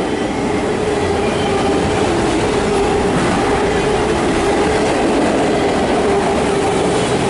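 Empty CSX autorack cars rolling past on the rails: a steady loud rumble of wheels on track with a continuous ringing tone over it.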